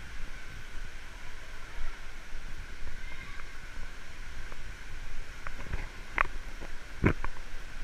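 Steady hiss of indoor water park ambience, the wash of pools and spraying water echoing around a large tiled hall. A few short, sharp sounds come through from about five to seven seconds in, the loudest near the end.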